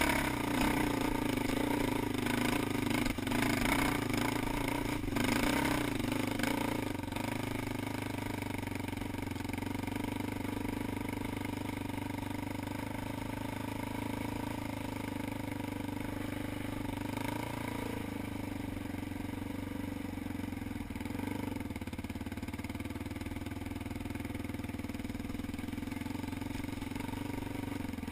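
ATV engine running steadily under way, louder with clattering over roughly the first seven seconds, then settling to a steadier, slightly quieter note.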